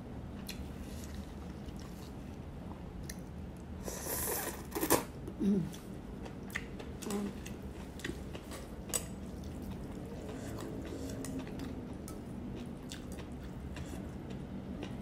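Close-up eating sounds of rice vermicelli noodles eaten with chopsticks: chewing with small clicks throughout, and a louder noisy slurp about four to five seconds in.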